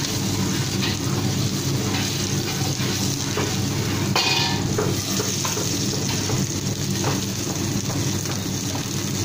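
Salmon roll sizzling in a non-stick frying pan on a gas burner, with a steady low hum underneath and a few light clinks of the pan.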